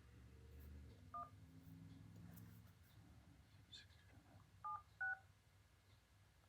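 Phone keypad dialing tones: three short two-note beeps as a number is keyed in, one about a second in and two close together near the end, over near silence.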